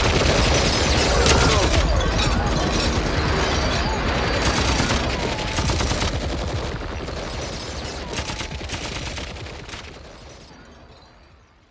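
Gunfire sound effect in a recording: volleys of rapid shots over a steady low din, fading out to silence near the end.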